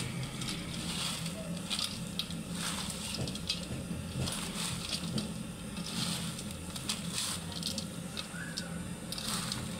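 Hands mixing and squeezing fried onions, fresh coriander, mint, green chillies and chopped tomatoes with spices in a bowl: irregular wet rustling and crunching.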